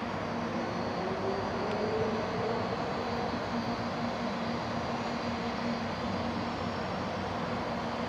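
Eight-car 700 series Shinkansen rolling slowly in along the station platform: a steady running rumble with a low hum, and a faint tone that rises in pitch a second or two in.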